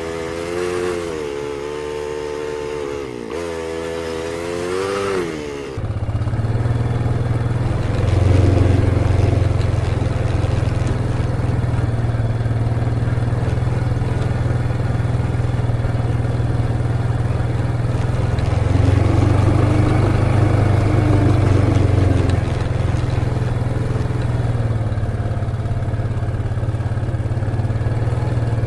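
A utility vehicle's engine running steadily at a low pitch, swelling slightly now and then as if under throttle. It starts about six seconds in, after a wavering drawn-out tone.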